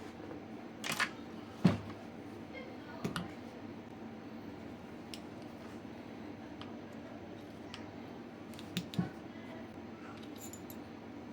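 Metal parts of a Mosin-Nagant bolt-action rifle being handled during disassembly: a series of scattered sharp clicks and knocks, the loudest a little under two seconds in, over a steady low hum.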